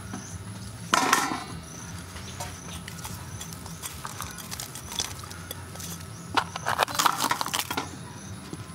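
Ingredients dropped into a large aluminium wok of eel and vegetables: herbs scattered by hand, then sliced chilies and lemongrass tipped from a plate, giving light rustling and clattering. The loudest clatter comes about a second in and again from about six and a half to seven and a half seconds.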